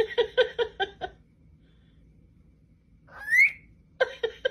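Small pet parrot whistling: quick runs of short repeated notes, with a single rising whistle about three seconds in.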